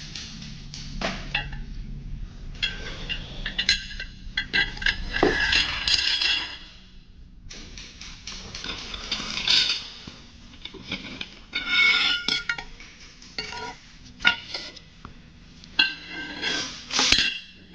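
Steel lawnmower blades clinking and clanking as they are handled and laid down on a concrete floor. There is a run of sharp metallic hits throughout, and a few of them ring briefly.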